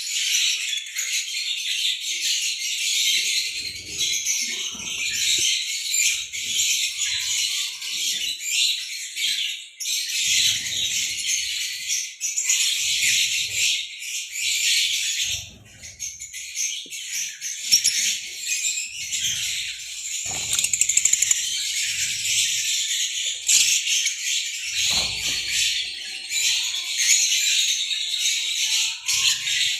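Many lovebirds chattering together: a dense, continuous mass of high-pitched chirps and shrieks, with short wing flutters now and then.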